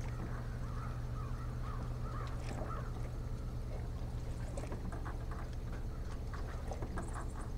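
Birds calling again and again in short, wavering calls, over a steady low hum with scattered clicks.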